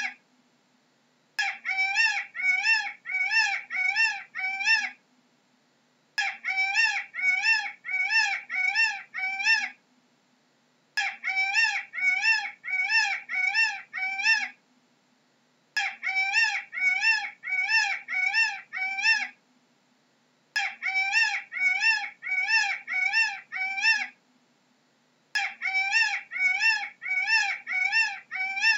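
Peacock calling in bouts of about seven short, wailing calls, roughly two a second. Each bout is followed by a pause of about a second, and the bouts repeat about every five seconds.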